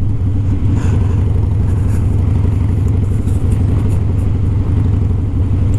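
Harley-Davidson Softail's V-twin engine running steadily at cruising speed on a dirt road, a constant low rumble of firing pulses with no change in speed.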